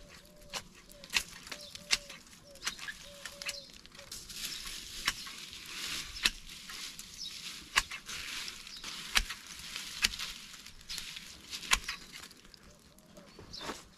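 Dry leaves and brush burning, with irregular sharp crackles and snaps over a steady hiss.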